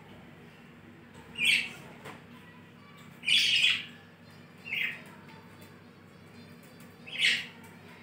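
Budgerigar calling: four short, shrill chirps spread a second or two apart, the second one longer than the rest.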